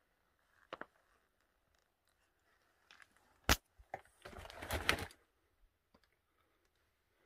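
Handling and scuffing noises from someone moving among loose rock: a couple of faint clicks, a sharp knock about three and a half seconds in, then about a second of rustling scraping.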